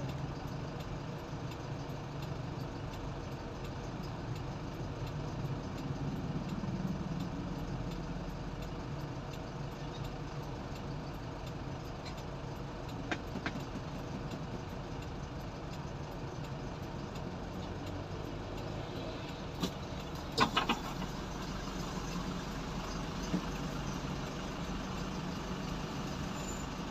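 Motorbike and small-vehicle engines running as traffic drives off a river ferry, over a steady low engine hum. A few sharp knocks stand out, a pair about halfway through and a louder cluster about twenty seconds in.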